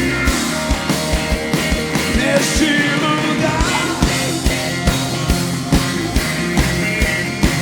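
Live worship band playing a rock-style groove, with a steady kick-drum beat under sustained instruments, between sung lines of the song.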